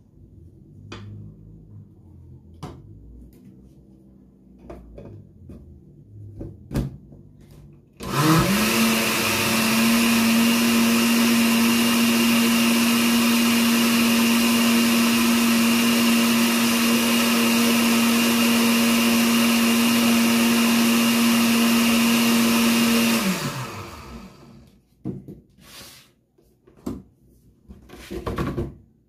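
Countertop blender motor starting up about eight seconds in, running steadily at one pitch for about fifteen seconds as it blends engrudo, a flour-and-water paste, to a smooth liquid, then winding down. Before it come light clinks and knocks of a spoon in the blender jar, and after it a few knocks as the jar and base are handled.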